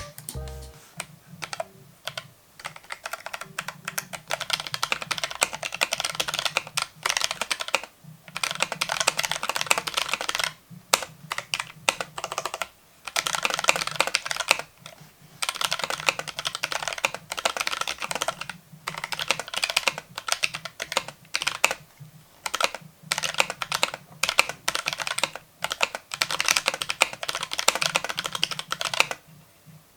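Fast typing on a Keychron K3 low-profile mechanical keyboard with brown Gateron switches: a quick run of light key clicks, broken by brief pauses.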